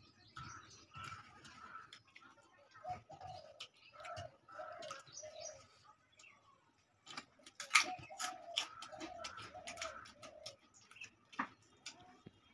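A dove cooing in runs of short repeated notes, about two a second, twice over. Mixed in are sharp clicks and scrapes of fingers on a steel plate as the last of the food is gathered up, the loudest clicks a little after the middle.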